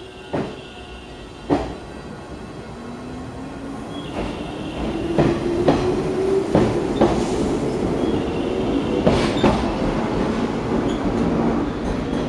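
JR West 105 series electric train pulling away from the platform. Its motor hum rises steadily in pitch as it gathers speed, with sharp clacks from the wheels on the track, coming in pairs, and the sound grows louder.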